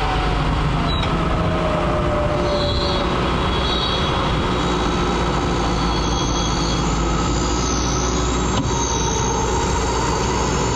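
Recovery winch hauling under load to pull a mud-stuck Land Rover out, over a vehicle engine running steadily. A whine sinks in pitch over the first few seconds as the pull takes up.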